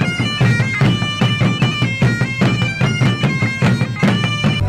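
Background music: a reedy, bagpipe-like melody of held notes stepping up and down over a low drone, with a steady drum beat.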